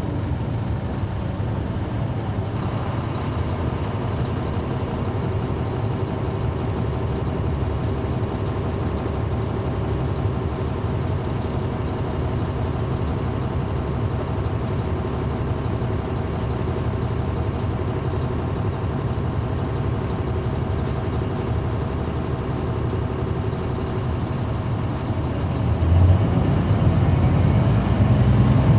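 Caterpillar C13 ACERT diesel engine of a NABI 40-foot transit bus, heard from the rear seats inside the bus. It runs steadily and grows louder about three seconds before the end.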